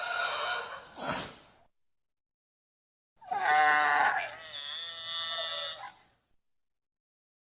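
Pteranodon sound effect: two harsh, pitched creature calls. The first is short, with a sharp click near its end. The second starts about three seconds in and lasts about three seconds, dropping away near its end.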